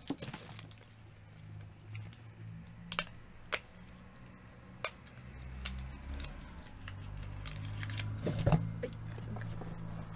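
Scattered clicks and taps of cosmetic packaging being handled, a few sharp ones spaced seconds apart, over a faint low steady hum.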